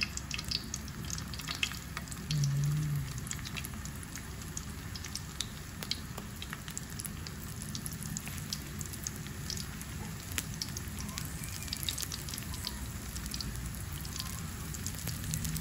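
Vegetable spring rolls sizzling and crackling as they fry in hot oil in a wok: a steady hiss dotted with many small pops. A brief low hum about two and a half seconds in.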